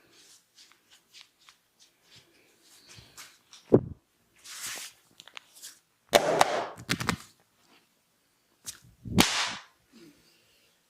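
Sharp slaps and snaps from a barber's hands during a head and neck massage: a loud single crack a little before the middle, then clusters of cracks with short hissy rushes.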